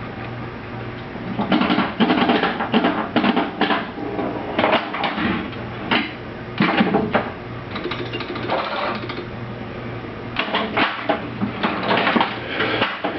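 Bursts of rapid mechanical clattering and clicking, on and off, over a steady low hum.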